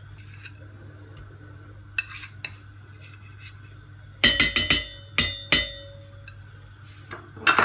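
A metal spoon knocking and scraping against a stainless steel pressure cooker and a ceramic bowl as ghee is spooned into the pot. A few faint clicks come about two seconds in, then a quick run of sharp ringing clinks from about four to five and a half seconds in, with a couple more near the end.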